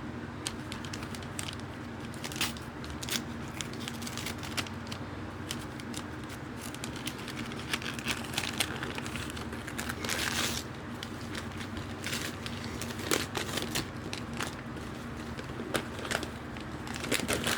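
Packaging being torn open and handled by hand: a run of small crinkles and crackles, with a longer tear about ten seconds in, over a steady low hum.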